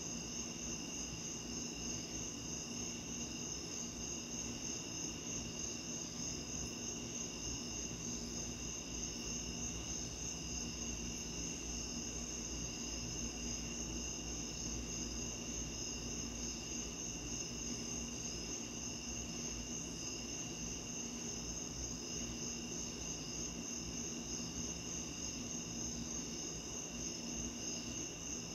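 Crickets and other night insects chirring steadily in a chorus at several pitches, over a low, even background hiss.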